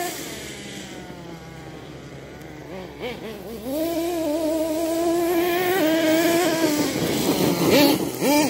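Nitro two-stroke glow engine of a Kyosho Mad Force RC monster truck at high revs, with a high, whining engine note. It is fainter at first, then climbs sharply about three and a half seconds in and holds steady, with quick drops and rises in pitch near the end as the throttle is worked.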